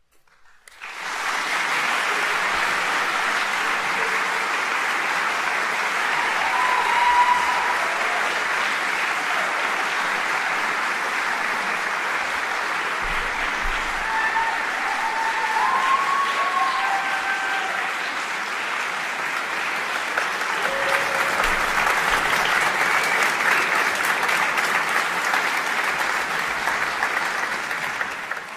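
Audience applauding, the clapping starting about a second in and dying away at the end.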